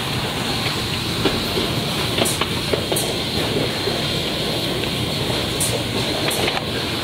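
LS-300A automatic rigid box making machine running in production: a steady mechanical whir with sharp, irregular clacks from its moving parts about once a second.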